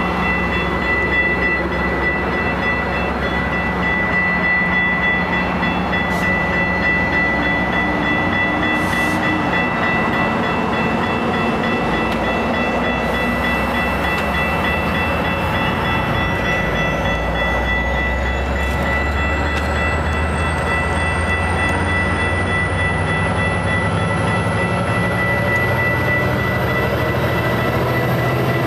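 Metra bilevel commuter train rolling past with a steady rumble of wheels on rail and a steady high-pitched squeal. In the second half the diesel of the train's MP36PH-3S locomotive grows louder as it comes by.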